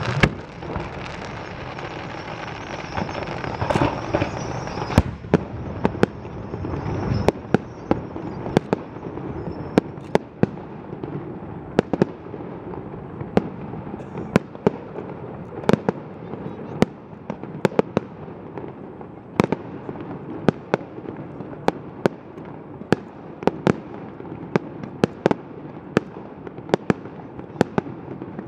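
Fireworks display: a dense rush of crackling for the first several seconds, then a long, irregular run of sharp bangs from bursting shells, roughly one or two a second, each with a short echo.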